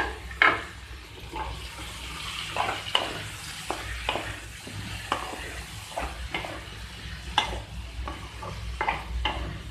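A spatula scraping and knocking against a metal kadai as diced ash gourd, potato and taro are stirred and sautéed in a little hot mustard oil, with a steady sizzle under short strokes about once a second.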